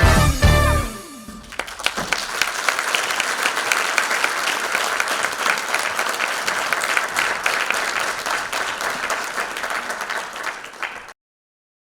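Audience applauding after the music of a dance number ends, the last of the music dying away in the first second. The applause cuts off abruptly near the end.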